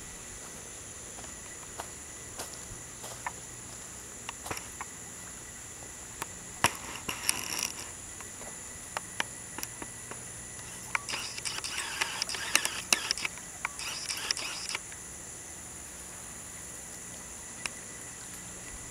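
Steady, high-pitched drone of an insect chorus. Over it come clicks and bursts of rustling from walking with a handheld camera on a pine-straw path, loudest about seven seconds in and again for a few seconds a little past the middle.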